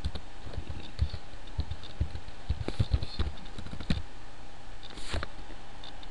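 Computer keyboard typing: a run of irregular keystrokes for about four seconds.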